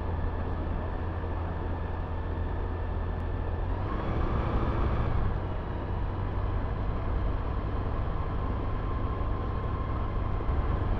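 Microlight aircraft's engine and propeller running steadily with a deep, even hum, heard from inside the open-frame cockpit. It grows louder briefly about four seconds in.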